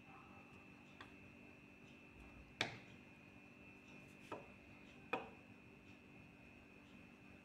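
Near-quiet room with a faint steady high whine, broken by a few sharp ticks of a pencil point tapping on paper over a wooden desk: one faint tick about a second in, then three sharper ones at uneven gaps over the next few seconds.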